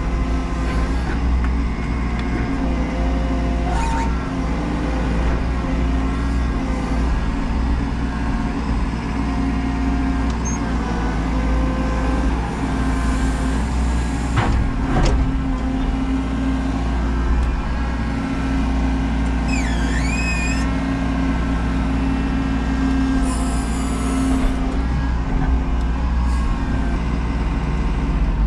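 Menzi Muck M335 spider excavator's engine and hydraulics running steadily, heard from inside the cab as the boom and arm work. A couple of sharp knocks, and a brief high squeal about twenty seconds in.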